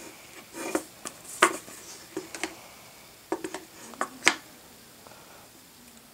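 An iPhone 5 and an iPhone 4S being handled and set down on a tabletop: a scattered run of light taps and clicks as the phones are turned sideways and nudged into place, stopping after about four seconds.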